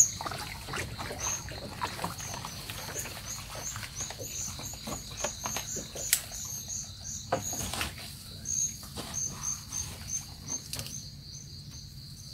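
Insects chirping steadily, a high, rapidly repeating chirp, over a string of close knocks and rustles from handling; the sharpest knocks come at the very start and about six seconds in, and the handling noises die away near the end.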